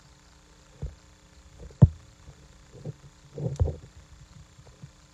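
A few short, dull thumps and knocks, the loudest about two seconds in and a quick cluster past the middle, over a faint steady hum.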